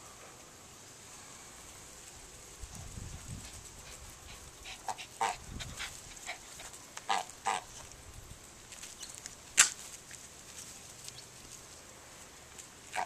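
Domestic goose giving a few short honks, in pairs about five and seven seconds in. A sharp knock about nine and a half seconds in is the loudest sound, with low rumbles here and there.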